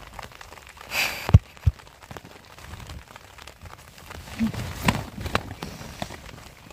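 Rain pattering on tent fabric, with two sharp, dull thumps about a second and a half in and clothes rustling as people scuffle inside the tent.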